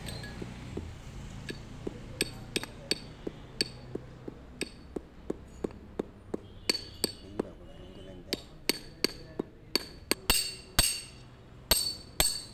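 Light metal-on-metal hammer taps on a steel drift, each with a ringing clink, driving a 35×62×10 oil seal into the four-wheel-drive sprocket shaft housing of a harvester. The taps start about one a second and come faster and harder in the last few seconds.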